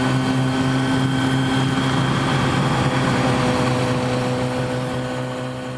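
Motorcycle engine droning at a steady speed, holding one even pitch, easing off slightly near the end.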